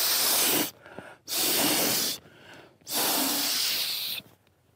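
A person blowing up a Sea to Summit Aeros Premium inflatable pillow by mouth: three long, hissing blows of air into the valve, each about a second long, with short pauses for breath between them.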